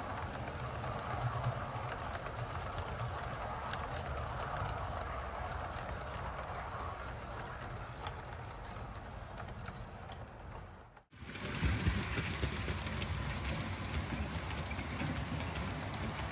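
Model train running on its track: a steady rumble of wheels on the rails with scattered light clicks. The sound drops out briefly about eleven seconds in, then comes back a little louder.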